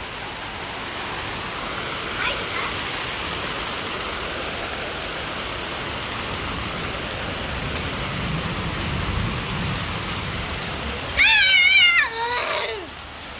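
Steady rain falling. About eleven seconds in, a child breaks into a loud, high, wavering cry lasting about two seconds.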